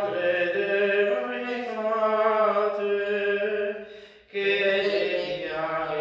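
A man's voice singing a slow, unaccompanied liturgical chant in long held notes, with a short pause for breath about four seconds in.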